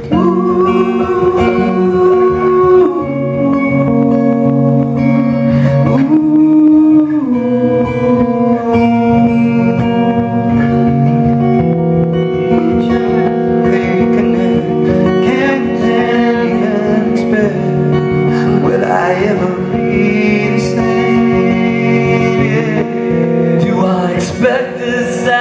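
Live rock band playing a slow song: guitar with long held sung notes.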